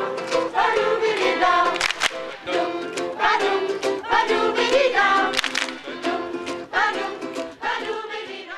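A group of voices singing a song together to a strummed acoustic guitar, the level tailing off near the end.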